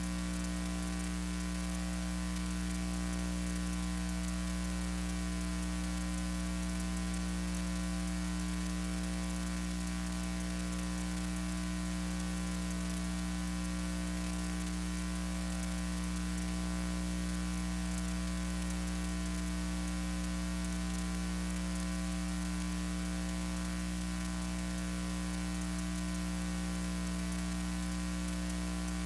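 Steady electrical mains hum with a layer of hiss, unchanging throughout: the noise floor of a silent archival film transfer, with no sound from the pictured scene.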